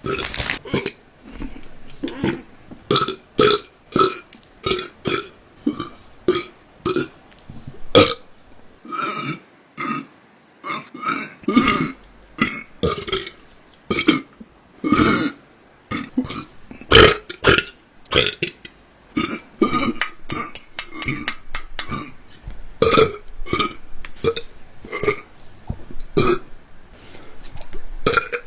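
A woman burping again and again: many short burps one after another, roughly one or two a second, with a few longer, drawn-out ones among them.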